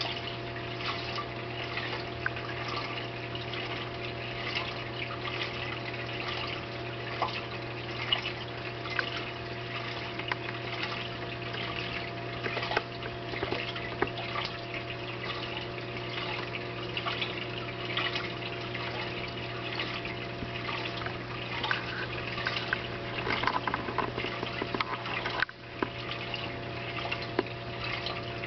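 Oceanic BioCube 29 reef aquarium's circulation running: a steady pump hum under continuously trickling, bubbling water with many small pops.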